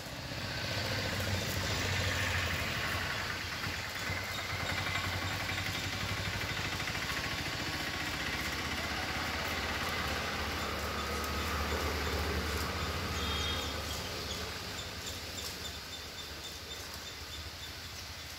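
A motor vehicle's engine running with a steady low hum. It comes in about a second in and fades away about fourteen seconds in.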